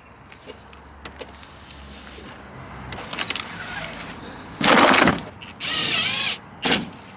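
Cordless drill driving a self-tapping screw up through a front splitter into the underside of a plastic bumper. The drill runs in short spurts: a brief burst about halfway in, a longer whine with a wavering pitch near the end, then a quick blip.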